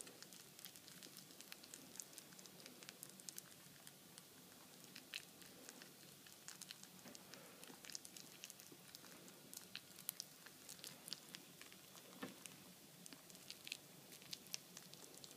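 Mini lop rabbit nibbling and chewing soft banana: faint, irregular little clicks and smacks, several a second.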